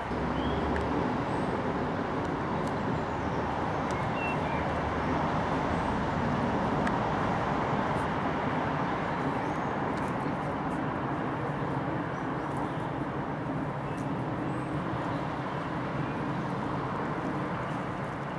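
Steady rushing background noise of distant road traffic, with a few faint high chirps.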